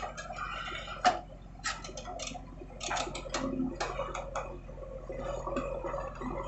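Backhoe loader's diesel engine running with a steady low hum, under irregular clicks and knocks, the sharpest about a second in.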